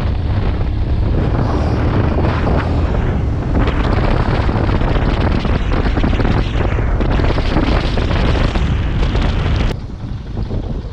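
Heavy wind buffeting on the microphone of a moving motorcycle: a loud, steady roar with a strong low rumble. It drops off abruptly near the end, leaving a quieter rumble.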